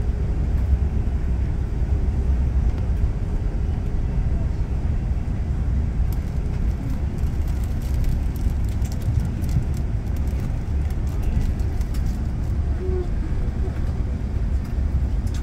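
Steady low rumble inside the main-deck cabin of an Airbus A380 on the ground, with scattered faint ticks and rattles from the cabin; the level holds even, with no takeoff surge.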